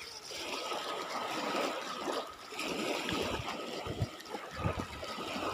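Small waves lapping and washing up over a gravel beach at the water's edge, swelling and receding about three times.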